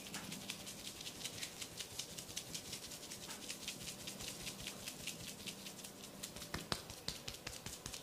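Head massage on oiled hair and scalp: quick crackly rubbing and scratching strokes, about five a second, with a couple of sharper clicks about six and a half seconds in.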